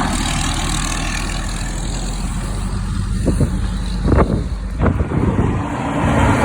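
Road traffic: a steady rumble of vehicle engines and tyres, with a few short, sharp louder sounds about three to five seconds in.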